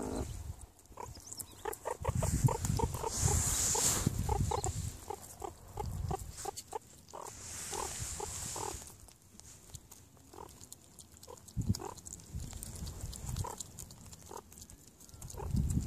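Meerkats feeding, giving many short squeaks and grunts while they eat, with rustling and rumbling handling noise in between.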